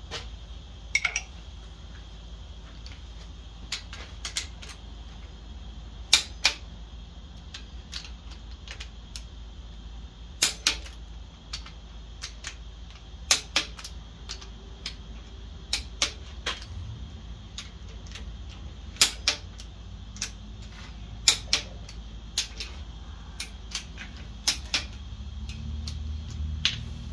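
Sharp metallic clicks of hand tools working on the connecting rod caps of an AMC 360 V8 rotating assembly, coming every few seconds and often in quick pairs, over a steady low background hum.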